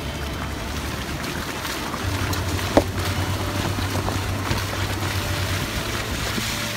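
Ford Explorer driving slowly on a wet dirt trail: a steady low engine hum with tyre and wind noise, and one sharp knock about three seconds in.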